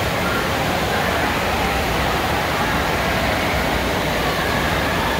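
Indoor water park ambience: a steady rush of water mixed with the din of many people's voices, in a large hall with a hard roof.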